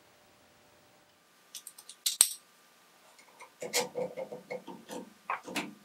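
Metal lathe change gears clinking and knocking against each other and the gear train as they are handled and fitted: a few light clicks and one sharp knock about two seconds in, then a quick run of ringing clinks.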